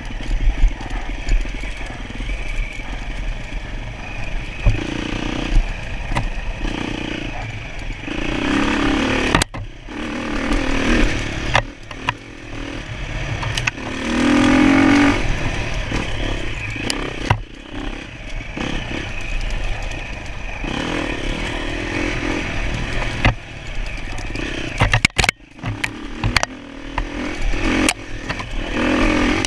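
Enduro dirt bike engine being ridden hard off-road, revving up and down repeatedly as the throttle is opened and shut, with several brief drops where the throttle is chopped. Scattered knocks and clatter are heard over the engine.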